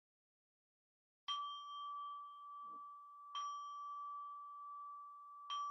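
A singing bowl is struck three times, about two seconds apart. Each strike rings on as a steady tone with a higher shimmer above it, and the rings overlap. This is the bell signal that opens the chanting.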